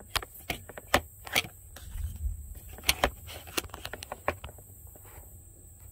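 Irregular sharp clicks and light knocks of hands and tools handling parts around a truck's intercooler tube and clamp, about eight in the first four and a half seconds, with a brief low rumble about two seconds in.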